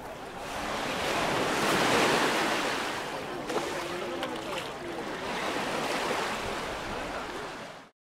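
Small waves washing onto a gravelly shore, swelling about two seconds in, with faint voices of people in the water behind. The sound cuts off suddenly near the end.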